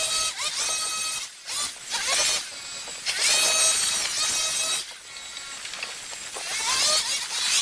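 STIHL hedge trimmer running in repeated short bursts: each time its pitch whines up quickly and then holds steady before it drops off, with a longer run from about three to five seconds in and another start near the end.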